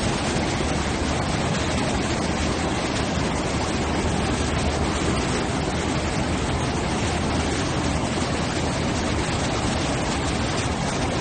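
Floodwater rushing in a swollen mountain river: a steady, dense noise of fast-moving water with no break.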